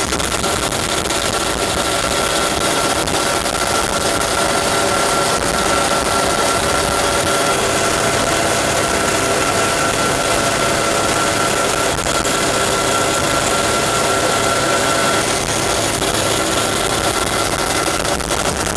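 Steady helicopter engine and rotor noise, with high steady whining tones over a constant rushing din.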